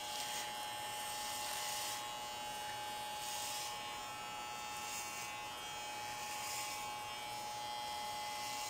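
Electric hair clippers buzzing steadily as they shave a man's head, with a few brief hissy swells as they pass through the hair.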